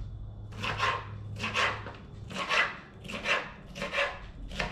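Knife slicing a bell pepper into strips on a cutting board: about six even strokes, roughly one every three-quarters of a second.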